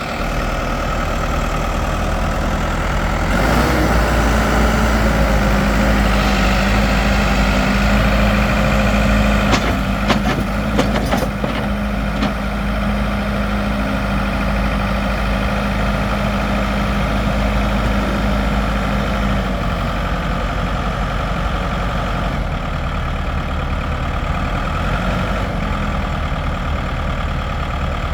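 2002 Case 580 backhoe's diesel engine running. It picks up about three and a half seconds in and settles back toward idle after about nineteen seconds. A few sharp clanks come near the middle.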